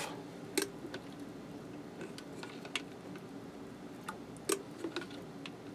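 Small plastic spoon clicking and tapping lightly while diced garlic is scooped from a glass jar into a pan of broth: a few sharp, irregular ticks over a low background hum.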